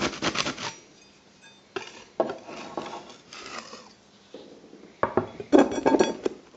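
Hard objects being handled, clattering and clinking against each other in three bursts, the last the loudest.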